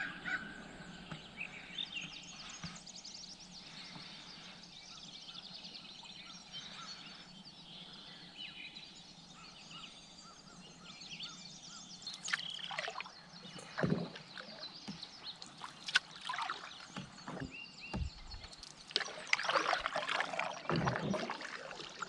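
Canoe paddling on calm water: the paddle blade dipping and pulling, with water trickling and dripping off it. It is faint at first, and from about halfway through, sharper splashes from the strokes come every second or two.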